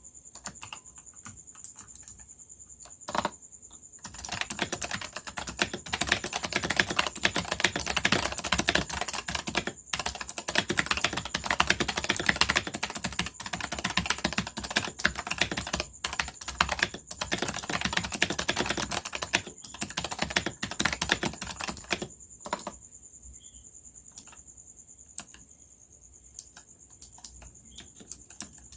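Computer keyboard with Razer Purple clicky opto-mechanical switches being typed on: a few scattered keystrokes, then a long stretch of fast continuous typing starting about four seconds in, easing back to occasional single presses after about twenty-two seconds.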